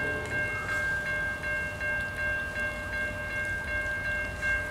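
Railroad crossing signal bell ringing in rapid, evenly spaced strokes, about three a second, as the crossing gates come down, with a low rumble underneath.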